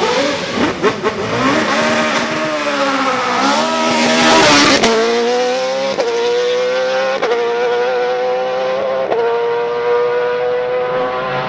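Lola FA99 single-seater racing car with a Cosworth engine running hard. The engine note drops and climbs back around three seconds in, then cuts sharply at four quick gear changes, with the pitch climbing again between each.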